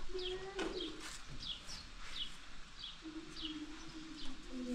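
Chicks peeping over and over, short falling peeps about two a second, with a lower drawn-out call near the start and again from about three seconds in.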